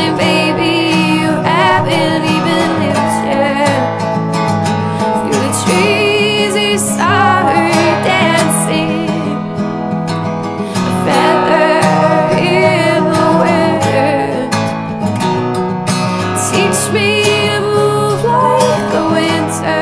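Background song with strummed acoustic guitar and singing.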